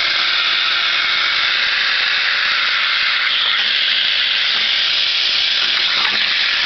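CNC plasma torch cutting through a machete blade blank: a loud, steady hiss with a faint steady hum beneath it.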